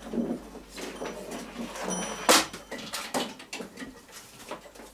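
Handling noise from fitting a plastic windshield onto a motorized tow sled: scraping and clattering with several knocks, the sharpest a little over two seconds in.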